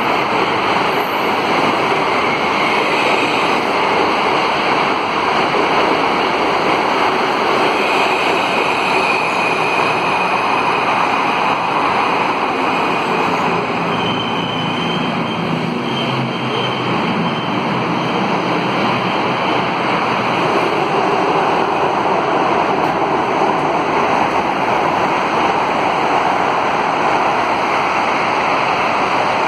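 Alstom AS 02 steel-wheeled metro train running on the rails: a steady rushing rail noise, with faint high whines about a third and halfway through.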